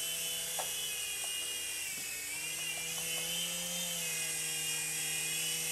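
9808 mini coaxial R/C helicopter hovering: its small electric rotor motors give a steady high whine. The pitch dips briefly about two seconds in, then rises again as the throttle comes back.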